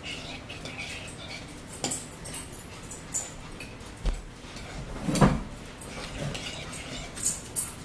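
Eating at the table: a spoon clinking and scraping in a bowl of chili, with close-up mouth sounds of chewing. A louder thump comes about five seconds in.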